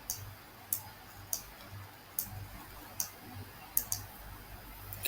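Computer mouse clicking: about eight short, sharp clicks at irregular intervals, two in quick succession near four seconds in.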